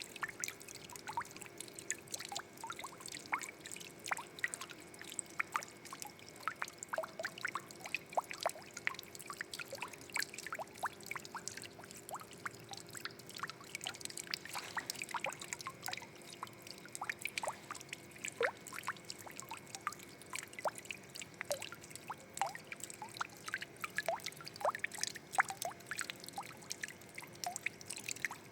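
Water trickling and splashing, with many small irregular drips and plinks over a steady wash of running water and a faint steady hum underneath.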